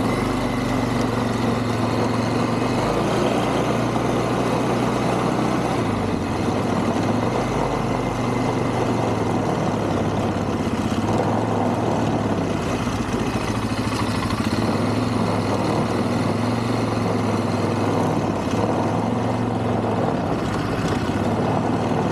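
Quad (ATV) engine running steadily as it is ridden, its pitch shifting slightly now and then with the throttle.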